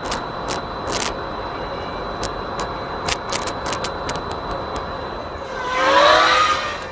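Steady outdoor noise on the goggles' microphone with scattered light clicks, then a vehicle passes near the end, its sound swelling to the loudest point and fading with a slightly falling engine tone.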